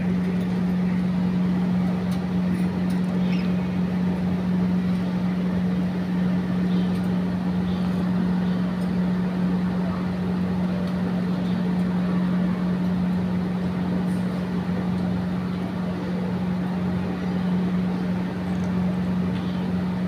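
A steady, low mechanical hum: one constant drone over a hiss.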